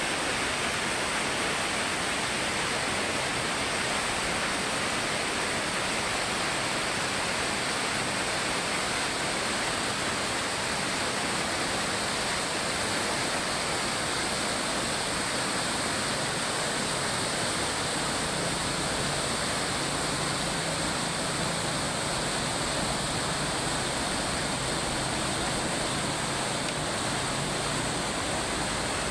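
Fast-flowing water rushing steadily, a continuous even noise with no breaks.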